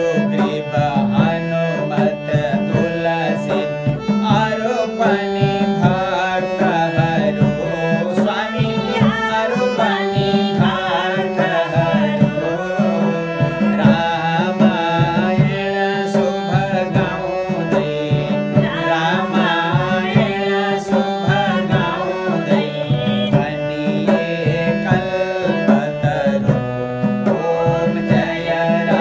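Harmonium playing a devotional aarti melody over a steady tabla rhythm, with a man's voice singing the aarti.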